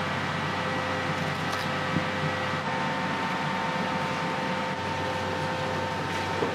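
Steady roar of a restaurant kitchen's gas wok burner and extractor hood, with a steady hum in it. Two light knocks come about two seconds in and near the end.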